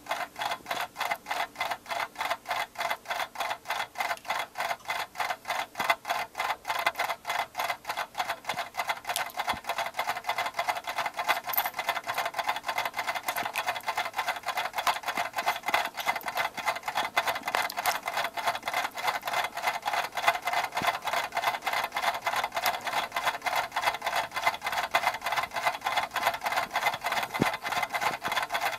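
Clock ticking in a fast, even rhythm of several ticks a second.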